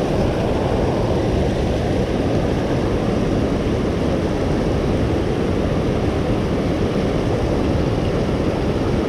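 Steady rush of flowing creek water, a loud, even noise with no letup.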